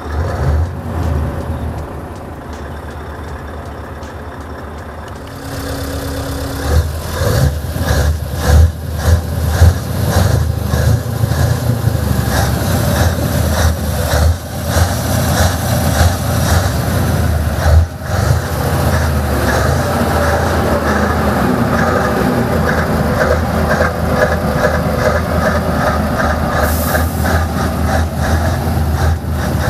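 Scania R770's 16.4-litre V8 diesel engine with stock exhaust, running at idle. It is quieter for the first few seconds, then louder and rougher from about six seconds in, with a few sharp loud peaks.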